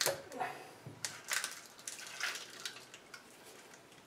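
Heavy 3-jaw chuck on a home-made steel back plate being unscrewed from the lathe's 1-5/8 in threaded spindle and lifted off: scattered light metal clicks and scrapes that thin out near the end. The back plate's threads are not yet cut deep enough and only just start on the spindle.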